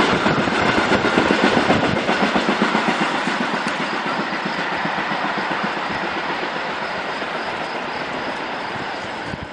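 Passenger train coaches passing at speed, wheels clattering rapidly over the rail joints. The clatter grows steadily fainter as the train draws away.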